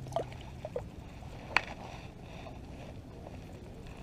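A hooked largemouth bass being landed at the water's edge: light splashing and handling noise, with a few short knocks and one sharp click about a second and a half in.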